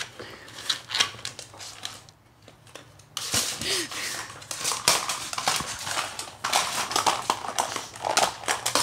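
Dog chewing and pawing at a hard plastic cat track-ball toy, clattering and scraping it against the floor. There are a few scattered clicks at first, then from about three seconds in a dense, rapid run of plastic clicks and knocks as the toy is bitten, shoved and lifted.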